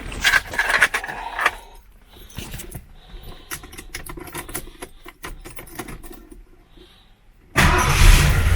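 Keys jangling and light clicks as the ignition key is handled. Near the end, the 1977 Mercury Cougar's 351 Windsor V8 fires at once and settles into running, its no-spark fault now cured.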